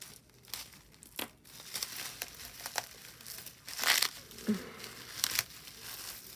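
Wrapping crinkling and rustling in uneven bursts with sharp crackles, as a rolled, layered bundle of wrapped jewelry is unrolled by hand; loudest about four seconds in.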